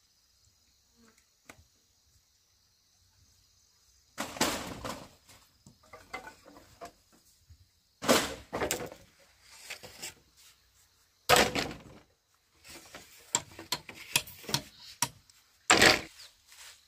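Hollow bamboo poles knocking and clattering as they are handled and dropped onto a pile, in four loud bursts a few seconds apart with smaller rattles between. A faint steady insect hiss is heard before the first burst.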